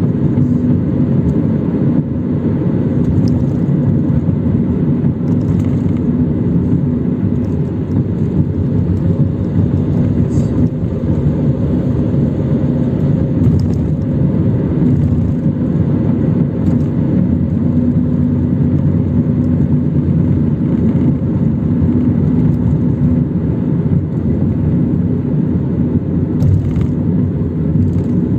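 Car cabin noise while driving on the road: the engine and tyres making a steady low rumble with an even hum.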